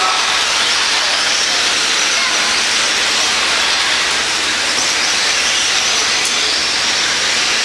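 Steady high whirring hiss of several electric radio-controlled stadium trucks racing together on a dirt track, their motors, gears and tyres running.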